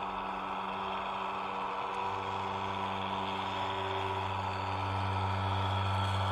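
A steady, motor-like hum at an unchanging pitch. A deeper low hum joins about two seconds in, and the sound grows slightly louder towards the end.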